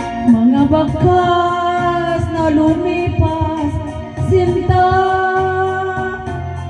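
A woman sings long, held notes with a wavering pitch into a microphone, over backing music with sustained low tones and a steady ticking beat about four times a second.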